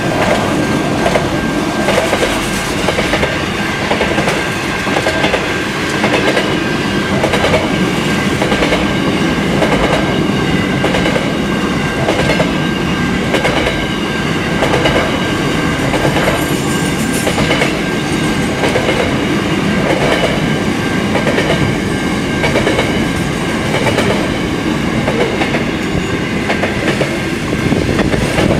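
Container wagons of a long freight train rolling past close by: a steady rumble of steel wheels on rail with a regular clickety-clack, and a thin steady whine above it.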